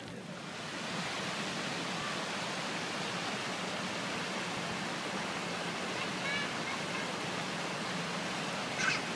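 Shallow stream rushing over rocks: a steady wash of running water that swells up about a second in and then holds even.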